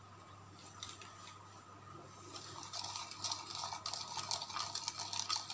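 A plastic spoon stirring a runny mixture of warm milk, sugar and yeast in a ceramic bowl, scraping and clicking rapidly against the bowl; the stirring starts about two seconds in and gets louder.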